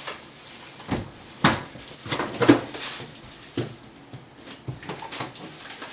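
Things being handled in an open refrigerator: a string of knocks and clatters of produce and containers, loudest about two and a half seconds in.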